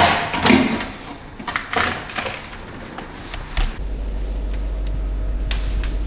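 Rustling and a few light knocks as people shift about inside the empty fridge and freezer compartments, then a steady low hum begins about four seconds in.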